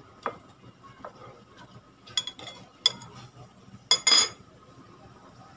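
Metal utensils clinking and scraping against a ceramic plate while fried fritters are lifted and moved: scattered sharp clinks, the loudest a ringing cluster about four seconds in.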